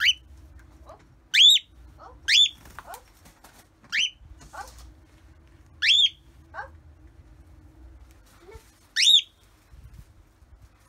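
Lutino cockatiel giving six short, loud, rising whistled calls, irregularly spaced, with fainter falling chirps in between.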